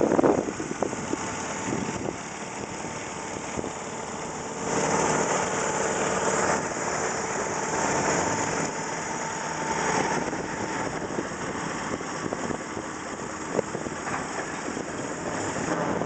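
20 hp Nichols & Shepard steam traction engine running steadily, belted to a sawmill, with a louder stretch from about five to eleven seconds in.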